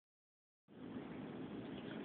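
Dead silence, then about two thirds of a second in a faint, steady hiss of room noise starts, with no distinct clicks.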